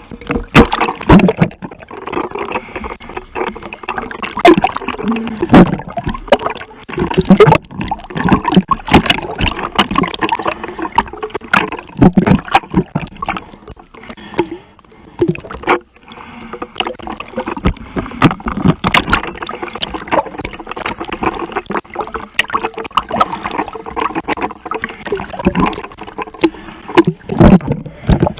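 Sea water splashing and sloshing close to the microphone, a dense run of short slaps and splashes.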